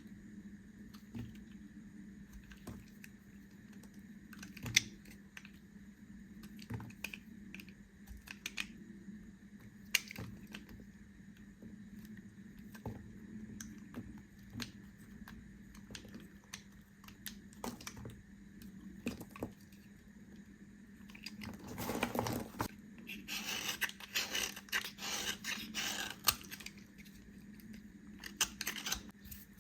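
Knife cutting into bars of soap: scattered crisp clicks and slicing sounds, then a denser run of crumbly scraping and cutting about three quarters of the way through.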